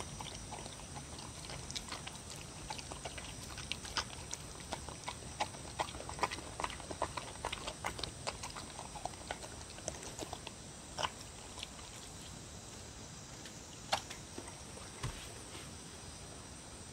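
A dog eating wet seaweed, beef and dried pollack soup from a bowl: wet chewing and lip-smacking clicks, thick for the first ten seconds or so, then only a few.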